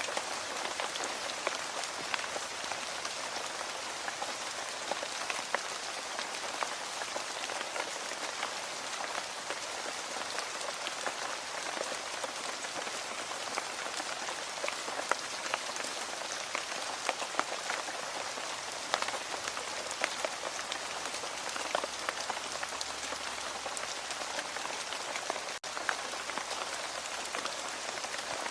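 Steady rain falling on a surface, a dense even hiss with many individual drops ticking and pattering through it.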